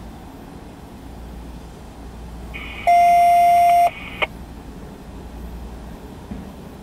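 An electronic beep: one steady tone about a second long, about three seconds in. It ends with a short click.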